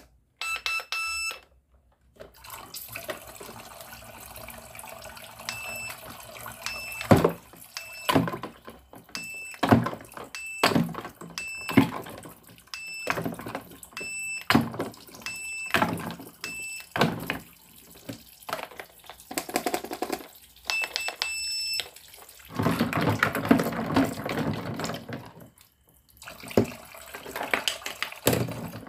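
Toy cash register beeping: short electronic beeps as keys are pressed at the start, then many more beeps over the middle stretch, mixed with the clicks and clacks of plastic toy food and toys being handled. Near the end comes a few seconds of rushing noise.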